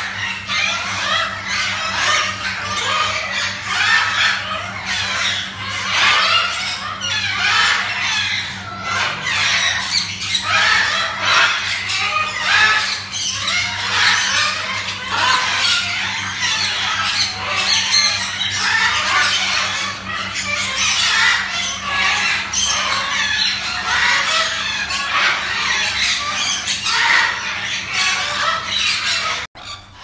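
Many caged parrots squawking and squealing at once, a dense and unbroken chorus of overlapping harsh calls, with a steady low electrical hum beneath.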